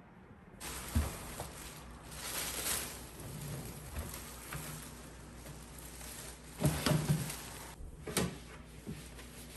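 Black plastic garbage bag rustling and crinkling as it is pulled out of a kitchen trash can, with a few knocks from the bin.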